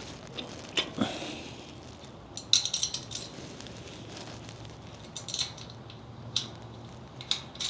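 Metal cart parts and hardware clinking and clicking as they are handled and fitted during assembly: a handful of sharp clinks, some in quick clusters, with quiet handling noise between.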